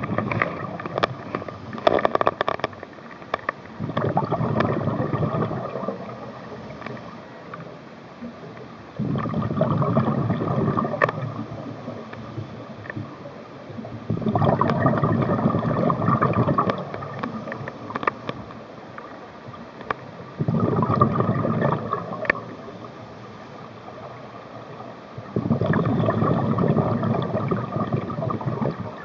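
Scuba diver breathing underwater through a regulator: five bubbling rushes of exhaled air, about every five to six seconds and each two to three seconds long, with quieter hiss between breaths.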